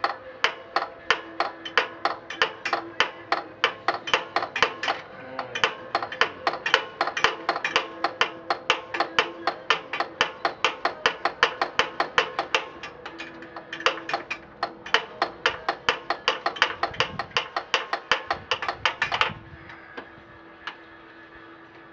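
Repeated hammer blows on metal on a riding lawn mower, about three strikes a second with a ringing note after each, keeping up with a brief break near thirteen seconds in and stopping about nineteen seconds in.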